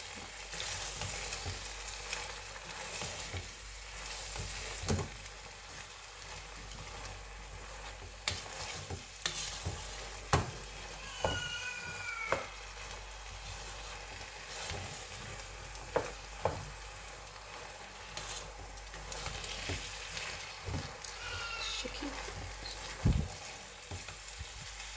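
Fried rice sizzling in a stainless steel pot as a wooden spoon stirs and scrapes through it, with frequent sharp knocks of the spoon against the pot. A brief high squeal sounds about halfway through.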